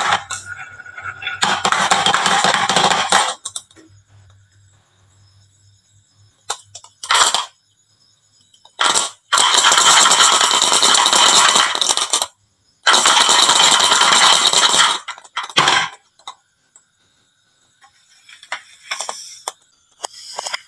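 Marbles rolling and clattering down a wooden marble run in loud runs of about two seconds each, with single sharp clicks of marbles knocking between them.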